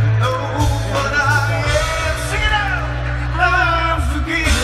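Live Christian worship band playing through a PA system: a singer's voice over electric guitar, drums and a heavy bass.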